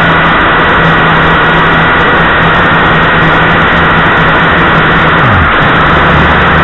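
Quadcopter motors and propellers whirring steadily with wind rush, heard loud and close through the drone's onboard camera microphone; a low hum drops in pitch about five seconds in.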